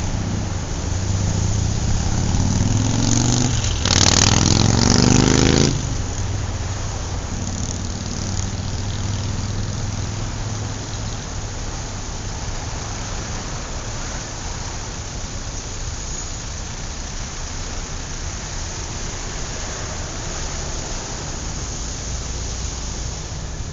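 Street-crossing traffic: engines idle and a vehicle accelerates with a rising engine note, passing close and loudest about four to six seconds in. After that, steady traffic rumble with idling engines and wind.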